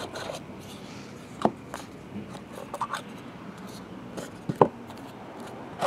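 Small cardboard trading-card pack box being handled and opened by hand: soft scraping and rubbing of the cardboard, with three sharp taps, the loudest about three-quarters through.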